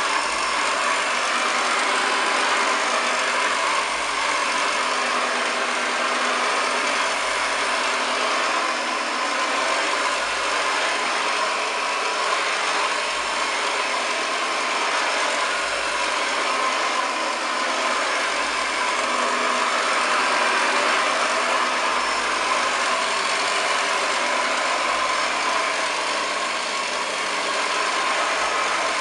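1929 Hoover Model 725 upright vacuum cleaner running steadily, its motor holding a constant whine.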